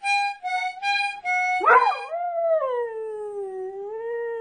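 A toddler blows about four short, reedy notes on a small harmonica, then a dog breaks in about a second and a half in and howls along in one long howl that wavers and slowly falls in pitch.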